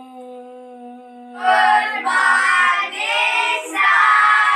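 A single steady held note, then, about a second and a half in, a group of boys' voices chanting loudly together in sing-song unison.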